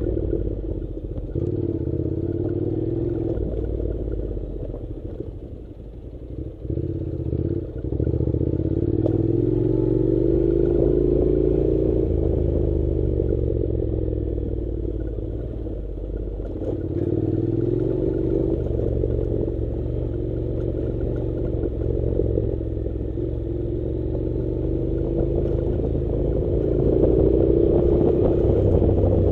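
Honda NC700 motorcycle's parallel-twin engine running as the bike is ridden along a rough dirt track. Its pitch rises and falls with the throttle, and it eases off and goes quieter around six seconds in before pulling again.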